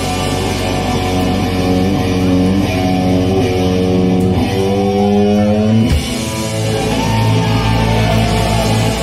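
Live hard-rock band playing: electric guitars over bass guitar and drums. The guitar line steps upward through held chords and changes about six seconds in to a low sustained note.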